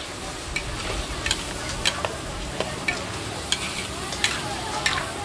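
A metal ladle and spatula scraping and clinking against a large metal wok in irregular strokes as chili-coated food is stir-fried, over a steady sizzle.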